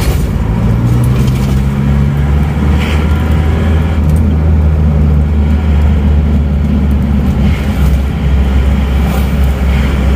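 Isuzu Panther's diesel engine running steadily while driving, heard from inside the cabin as a low drone with road noise. It runs smoothly after the repair.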